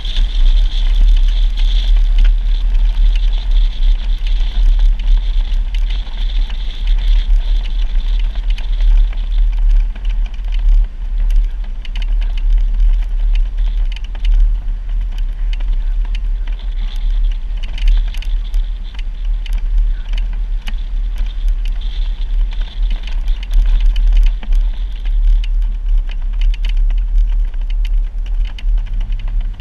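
Jeep driving along an off-road dirt trail: a steady deep rumble with frequent small clicks and rattles.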